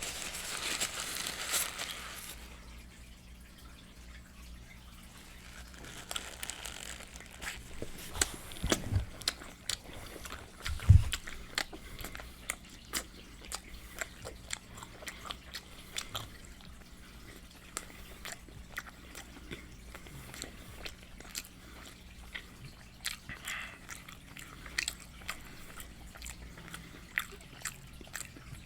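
Close-miked eating of Popeyes fried chicken: crunchy bites, chewing and wet lip smacking, with crunching loudest in the first couple of seconds. A couple of low thumps, the loudest about eleven seconds in.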